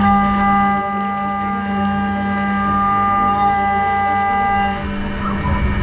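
A BVM 5700 CNC mill's spindle cutting G10 glass-fibre laminate with a diamond-coated end mill under flood coolant, giving a steady high-pitched machining whine. Part of the whine drops away near the end as the cut changes.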